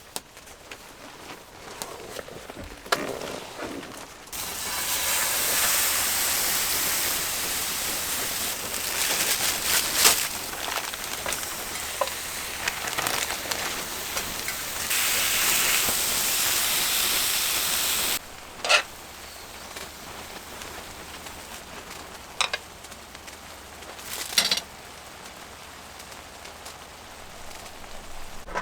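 Food sizzling in a hot frying pan: a loud, even hiss that starts suddenly a few seconds in, grows louder near the middle and cuts off abruptly, with a few sharp clicks and knocks of cookware before and after.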